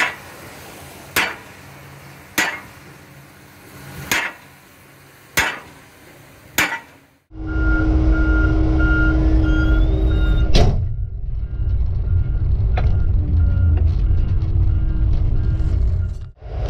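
Sledgehammer blows on steel at a feller buncher's saw head, six sharp strikes a little over a second apart. After that, the steady, much louder diesel engine of grapple-equipped logging equipment, heard from inside its cab, with a repeating high warning beep.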